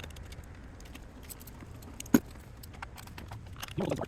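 Scattered light clicks and clinks, with one sharper knock about two seconds in, over a low steady hum.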